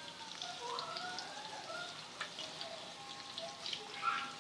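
Pakora batter deep-frying in hot ghee: a steady crackle of small scattered pops over a soft sizzle. A faint wavering tone sits underneath.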